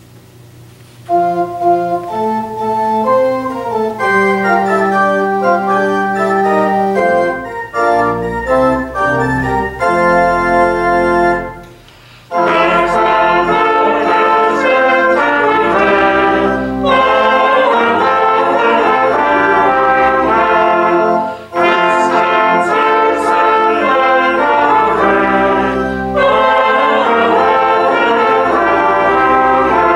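Brass trio of two trumpets and a trombone playing. The music starts about a second in, breaks off briefly midway, then comes back fuller and louder.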